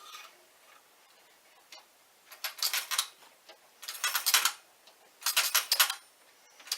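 Clockwork spring motor of a Marx wind-up Commodore Vanderbilt locomotive being wound with its key: runs of rapid ratchet clicking, three turns about a second and a half apart, starting about two seconds in.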